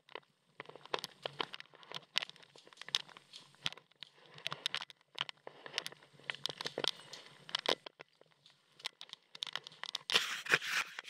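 Irregular crackling, rustling and sharp clicks from an airsoft player's mask and gear moving close to a head-mounted camera, with a denser, louder flurry about ten seconds in.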